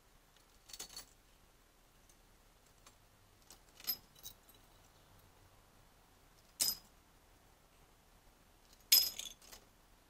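Small brass bells jingling briefly as a budgerigar knocks them about while playing, four short jangles with the loudest near the end.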